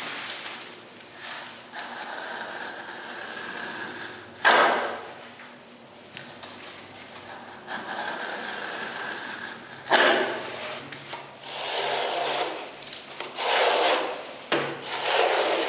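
Steel plastering spatula scraping across firm, part-set gypsum plaster on a window reveal, trimming it flat. The scrapes come as separate strokes, loudest about four and a half and ten seconds in, then come more closely together near the end.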